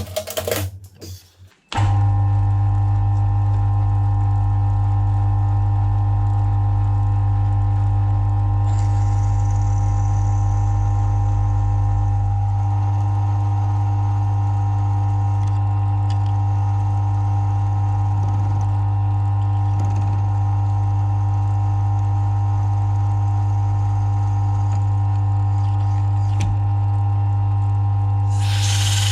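Mill-drill motor and gearhead switched on and running at one steady speed: a loud, even hum with a strong low drone and several fixed higher tones. It starts suddenly about two seconds in, with a few faint ticks along the way and a brief hiss near the end.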